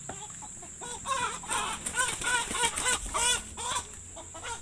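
A chicken clucking: a quick run of short calls that rise and fall, starting about a second in and stopping shortly before the end.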